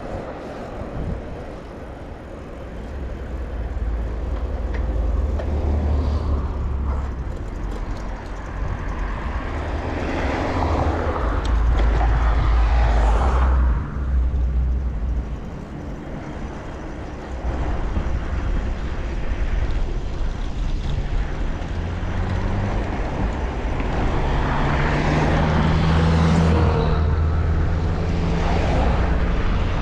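Wind rumbling on the microphone of a moving bicycle, with road traffic passing; the traffic noise swells twice, about a third of the way in and again near the end.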